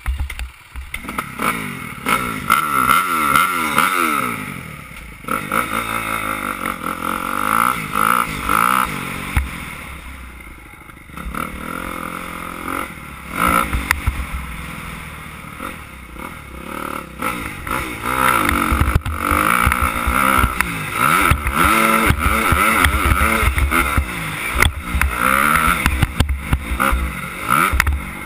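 Suzuki 250 motocross bike's engine revving hard and dropping back again and again as it is ridden round a dirt track, its pitch rising through each gear and falling between. Wind buffets the helmet-mounted microphone, with occasional knocks from bumps.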